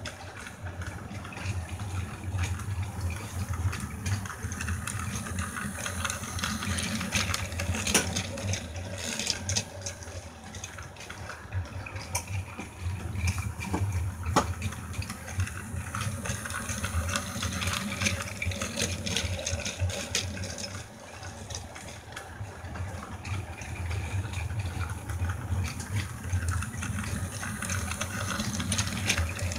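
Battery-powered toy train on plastic track: a steady whirr of its small motor and gears, with occasional clicks as it goes round the loop.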